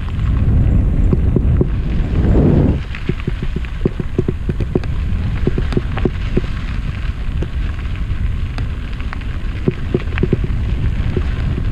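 Mountain bike rolling fast down a dirt trail. A heavy low wind rumble on the microphone lasts for the first three seconds or so. Then comes a steady crackle of tyres on dirt and small stones, with many quick clicks and rattles.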